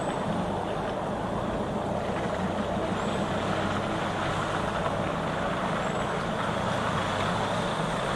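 Steady rumble of distant road traffic, an even background hum that neither rises nor falls.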